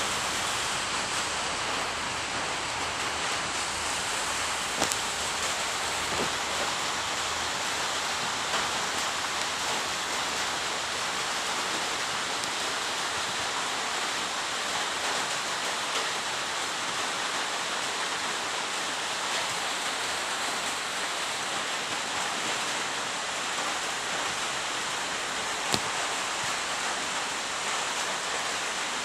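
A steady, even hiss, like rain or rushing water, with a few faint clicks about five, eight and twenty-six seconds in.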